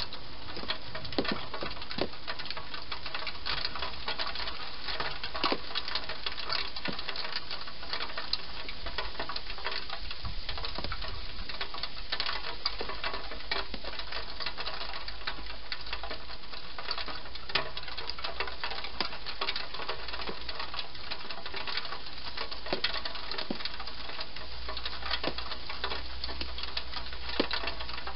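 Wild hedgehog eating: a steady run of fast, irregular crunching and smacking clicks from its chewing.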